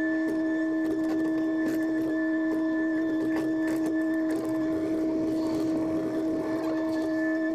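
John Deere 50G compact excavator's diesel engine and hydraulics running steadily at working speed, a constant hum with a high whine, heard from inside the closed cab while the bucket digs and lifts. Scattered light clicks and knocks sound over it.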